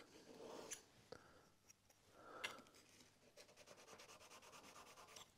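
Faint scraping of a secateur blade rubbed flat on a sharpening plate to take off the burr raised by the steel: a few light strokes, the most distinct about two and a half seconds in.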